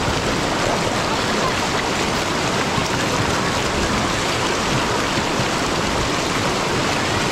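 Shallow river rapids rushing over rocks: a steady, even rush of fast-flowing water.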